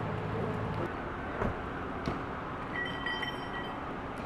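Engines of emergency vehicles idling, with two sharp knocks about a second and a half and two seconds in, and a high electronic tone lasting about a second near the end.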